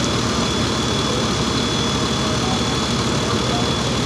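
Heavy fire-apparatus diesel engine running steadily at the fire ground, driving the pump that feeds the aerial truck's water stream: an even low rumble under a wash of steady noise, with a thin high whine held throughout.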